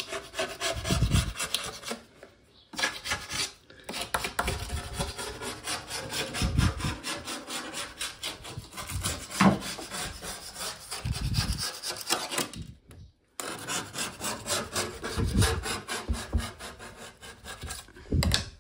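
Hand-held plastic scraper scraping quickly back and forth over a kitchen worktop and the chipboard edge of the sink cut-out, with a few short pauses, to clear off residue left after the old sink was removed.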